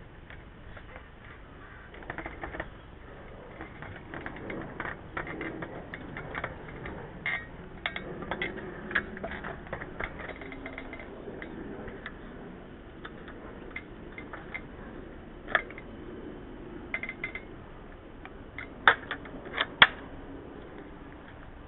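Scattered knocks, scrapes and light metallic clinks from an aluminium ladder being climbed down and gripped, with a few sharper clanks near the end.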